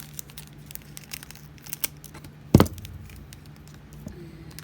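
Small plastic baggies crinkling and rustling with light clicks while being handled, and one sharp thump about two and a half seconds in.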